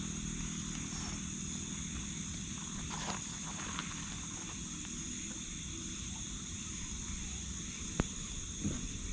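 A steady, high-pitched chorus of night insects, with a single sharp click about eight seconds in.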